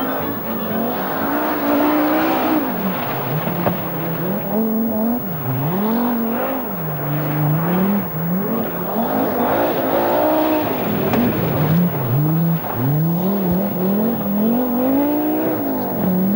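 Rally car engines, Audi Quattros among them, revving hard and dropping back again and again through gear changes as the cars slide over a loose stage surface.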